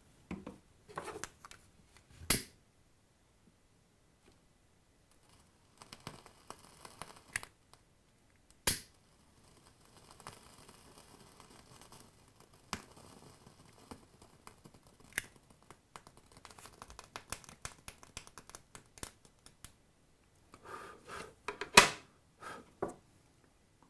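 Small clicks and taps of hands handling a steel mesh wick and a disposable lighter. The lighter is clicked alight about halfway in and burns with a faint steady hiss, the flame playing over the e-liquid-soaked wick. A louder knock near the end as the lighter is set down on the table.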